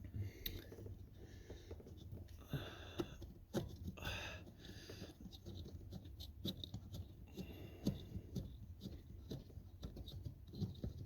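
Scattered light clicks, taps and short scraping or rustling sounds of an 8 mm socket being worked on the accelerator pedal's mounting bolt and the bolts being handled.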